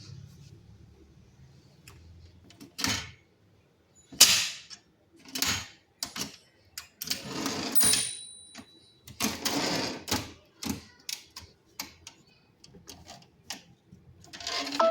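Old manual Tamil typewriter being typed on: irregular, loud key strikes with a few longer sliding, rasping sounds of the mechanism in between.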